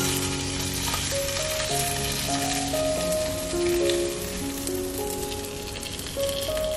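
Soft instrumental background music of slow, held notes, over a steady high hiss.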